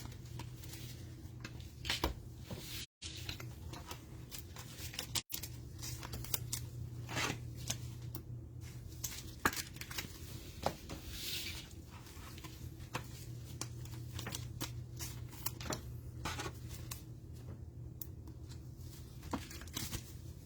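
Hands handling trading cards and their cellophane pack wrappers: scattered short taps, slides and rustles over a steady low hum.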